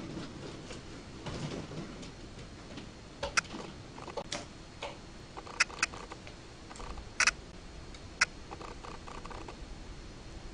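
Grey long-eared bat scrabbling at a dish of mealworms: soft rustling, with a handful of sharp clicks from about three seconds in.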